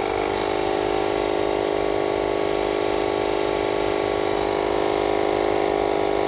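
Small old 12-volt air pump running with a steady hum, inflating a tractor tire that has come off the rim's bead to reseat it.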